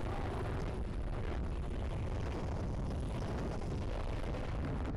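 Helicopter rotor noise and downwash buffeting a helmet-mounted microphone: a steady, heavy low rumble of wind and engine.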